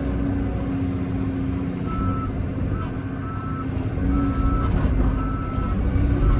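Heavy diesel engine running steadily, with a backup alarm beeping about once a second, each beep about half a second long, starting about two seconds in.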